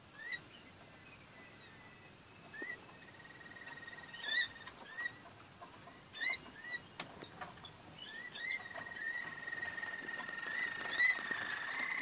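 Caged canaries singing: short rising whistled notes scattered through the first several seconds, then from about eight seconds in a long, drawn-out whistled note that runs on.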